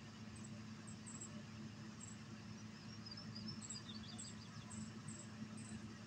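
Faint campsite ambience: a steady low hum under short high chirps that repeat a few times a second, with a brief falling run of bird chirps about three to four seconds in.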